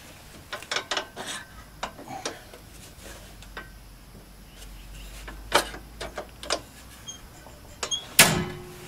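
Metal clicks and knocks from a homemade retractable truck step being retracted by hand, its latches and lock rod being worked, then a louder clank about eight seconds in as the step swings up into its stowed position.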